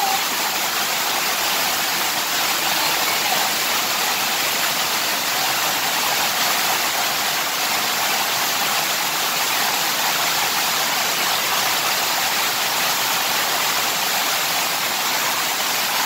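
Fast-flowing stream rushing and splashing over rocks inside a stone-lined tunnel, a steady, loud rush of whitewater.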